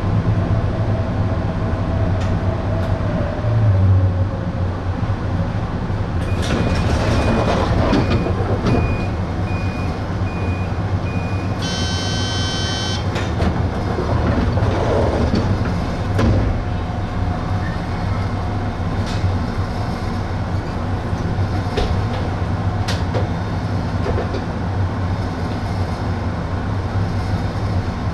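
Steady low hum of an electric train's equipment, heard inside the driver's cab. About six seconds in, a run of short, evenly spaced beeps lasts some five seconds, then a brief buzzer sounds.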